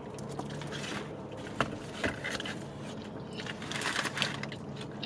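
Close-up eating sounds: chewing and crunching of a bacon burger, with a few sharp clicks and smacks and a busier stretch of crunching a little under four seconds in, over a steady low hum.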